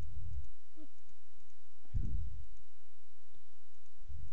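Computer mouse clicking several times while layers are toggled, with a few dull low thumps.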